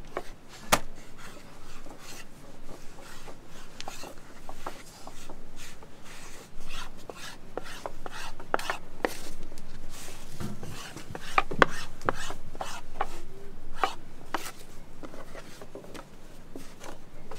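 Food preparation on a wooden board: irregular knocks and scraping, like a knife cutting and hands working dough.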